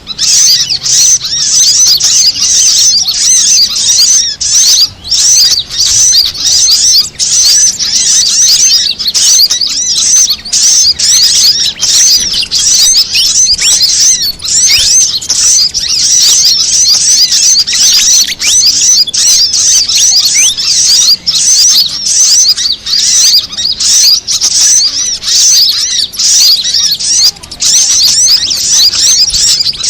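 Loud bird-lure recording: dense, rapid high-pitched chirping and twittering of small birds without a break, a mix of fantail (kipasan) calls with brown-throated sunbird (kolibri kelapa) and female sogon sunbird calls.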